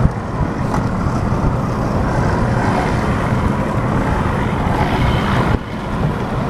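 Rescue boat's outboard engine running astern, heard over wind on the microphone. The sound dips suddenly about five and a half seconds in.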